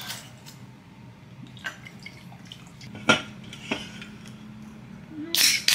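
Whisky bottle and glass being handled, with a trickle of liquid. A few sharp clinks, the loudest about three seconds in, then a short loud rush of noise near the end.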